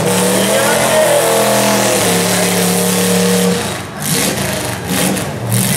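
Demolition derby car engines revving hard, several running at once at a high, fairly steady pitch. They ease off just before four seconds in, leaving a rougher, uneven engine noise.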